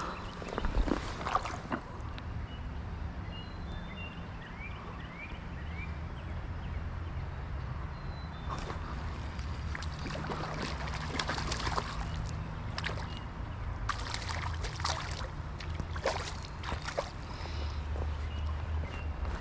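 Creek water running steadily, with scattered sharp clicks and knocks over it.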